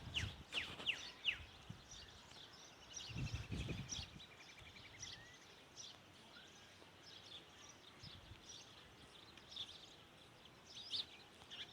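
Faint outdoor birdsong: several birds chirping in quick downward-sweeping notes, with a rapid trill a few seconds in and scattered chirps throughout. A brief low noise sounds about three seconds in.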